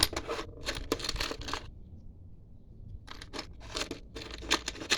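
Rummaging through a container of small hardware: rustling and scraping with a few sharp clicks, in two spells with a pause of about a second and a half between them.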